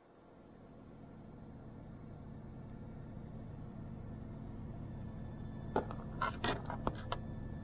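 A few light clicks and taps, starting a little under six seconds in, as a hand picks up a small tube of epoxy glue from a plastic car door armrest. Under them runs a low, steady hum.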